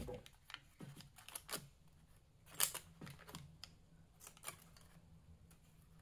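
Small precision scissors of a multi-tool opening and snipping into a paper receipt: a scattering of light, irregular clicks and snips.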